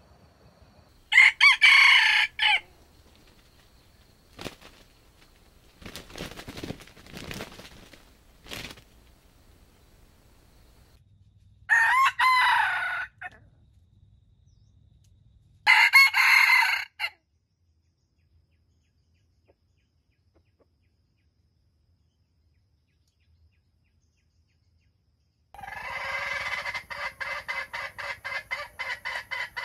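Junglefowl rooster crowing three times, each a short crow of under two seconds. Near the end a hen clucks rapidly, about five clucks a second.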